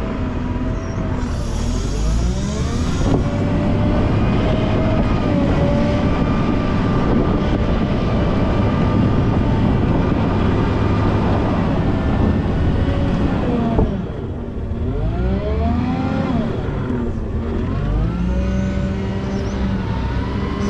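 Volvo L90H wheel loader's diesel engine working while plowing snow, its revs rising and falling again and again as it pushes and changes direction. Near 14 seconds in, the revs drop sharply, then climb back up.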